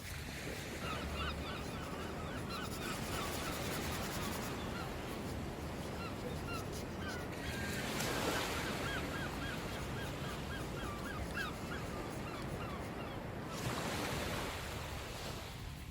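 Sea waves washing on a shore, swelling louder twice, with a flock of birds giving many short, quick, repeated honking calls over them for most of the stretch.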